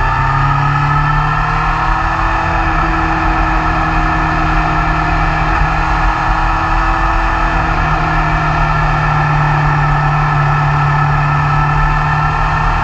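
BMW S1000R's inline-four engine running under load at speed, rising in pitch in the first second and then holding steady revs.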